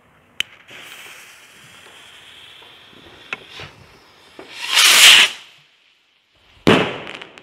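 An Xplode Swirl firework rocket's fuse hisses for a few seconds. The rocket then launches about five seconds in with a loud rising whoosh, and a sharp bang from its burst in the sky follows near the end.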